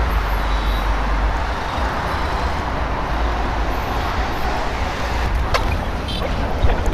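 Steady outdoor background noise with a constant low rumble and a couple of faint clicks near the end.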